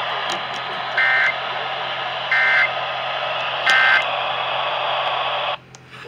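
Emergency Alert System end-of-message data bursts played through a Midland emergency radio's speaker over a hiss of AM static: three short two-tone digital bursts about 1.3 seconds apart, marking the end of a required weekly test. The radio's sound cuts off about five and a half seconds in.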